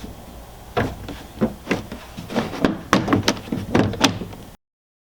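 Plastic clips of a Toyota Tundra CrewMax interior trim panel being snapped into place: a series of about ten sharp knocks and clicks as the panel is pressed home. The sound cuts off suddenly near the end.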